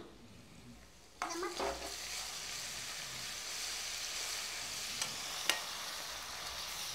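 Onions with ginger-garlic paste frying in hot oil in a pan, stirred with a spoon. After a quieter first second the sizzle rises suddenly and runs on steadily with scraping. There are two sharp knocks of the spoon a little past the middle.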